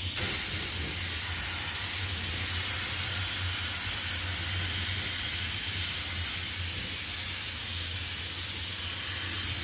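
Siphon-feed paint spray gun spraying a truck wheel rim: a steady hiss of compressed air and paint mist that cuts in right at the start and holds even, with a low steady hum underneath.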